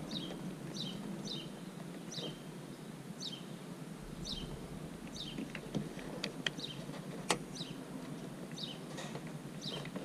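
A small bird chirping over and over, a short falling chirp about once a second. A few sharp clicks in the second half, the loudest about seven seconds in, come from the plastic door trim panel being pressed into place.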